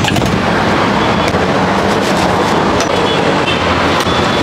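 Steady roadside traffic noise, with a few light clicks of utensils at the food stall.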